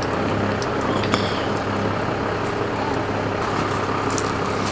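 A vehicle engine running steadily at idle, a constant low hum with a few faint clicks over it.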